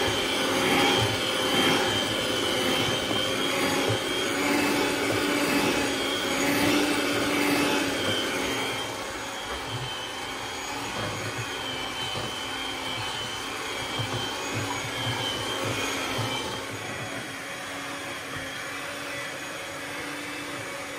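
Electric hand mixer running steadily, its beaters whisking chocolate cake batter. It gets a little quieter about eight seconds in.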